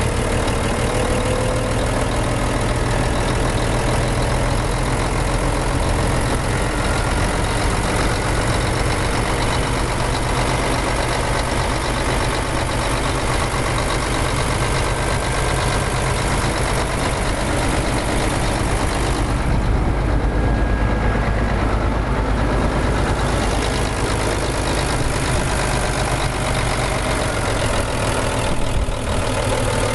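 Scania 124G 360's 12-litre inline-six turbo diesel idling steadily, heard close up over the open engine bay.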